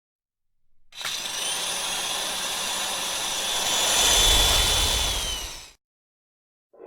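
A small electric motor whining at high speed, a Lego Technic motor spinning the battlebot's weapon, its pitch dropping as it winds down near the end before cutting out.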